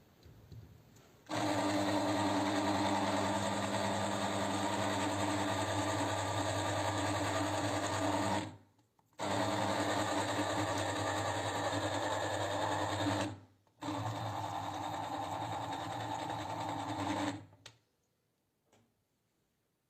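A small electric motor running steadily in three runs, the first about seven seconds long and the next two about four seconds each, each cut off abruptly.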